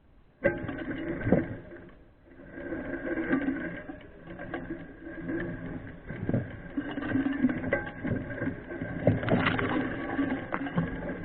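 Mountain bike rattling and clicking as it is ridden over a rough trail, with a steady mechanical chatter and many small knocks. It starts abruptly about half a second in.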